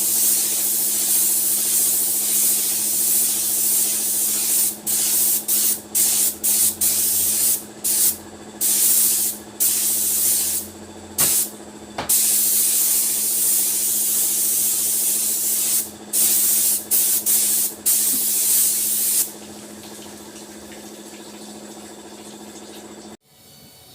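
Compressed-air spray gun hissing in bursts, on and off many times, with longer runs near the middle, over a steady machine hum that stops suddenly near the end.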